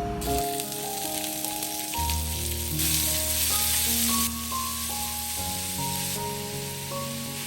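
Food sizzling as it fries in a hot pan, a steady hiss that grows louder for a second or so in the middle. Soft background music plays under it.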